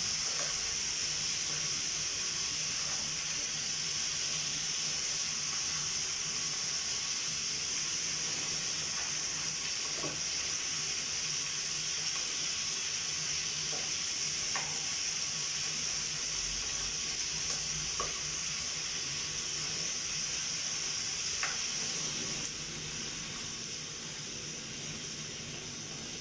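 Potatoes frying in oil with garlic and onion in a pan: a steady sizzle with a few faint clicks as the pieces are handled. The sizzle eases a little near the end.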